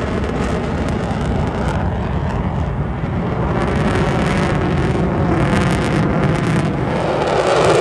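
Aircraft engine noise from a plane flying over, a steady loud rumble that swells near the end.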